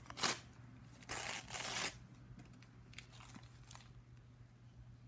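Wrapping paper on a present being torn and crinkled: a short rip at the start, a longer tearing rustle about a second in, then a few faint crinkles.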